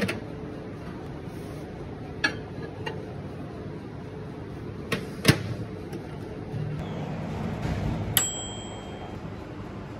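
Dawlance mechanical-dial microwave oven: clicks of the dial and door, a loud clunk of the door shutting about five seconds in, a low hum of the oven running, then a single ding of its timer bell about eight seconds in that rings on briefly.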